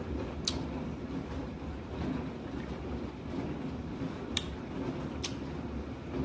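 A person chewing a mouthful of fresh pineapple, with three sharp clicks. The clicks come about half a second in and twice near the end, over a steady low hum.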